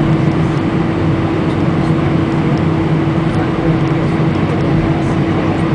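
Airbus A319 jet engines running at low power while the airliner taxis after landing, heard inside the cabin as a steady, loud drone with a constant tone running through it.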